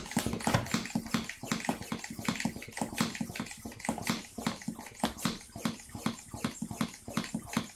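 eSUN eVacuum kit's hand-operated pump worked rapidly on a vacuum bag's valve, a quick, even run of pumping strokes as air is sucked out of the bag.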